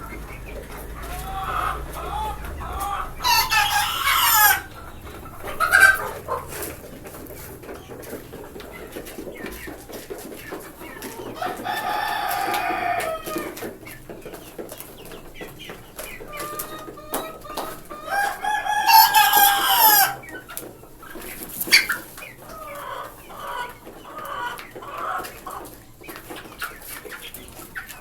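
Desi chickens clucking, with a rooster crowing loudly three times.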